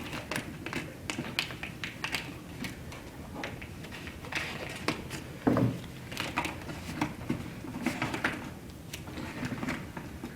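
Contact paper being trimmed and handled on a cardboard box: scattered, irregular clicks, snips and crinkles of cutting and paper handling.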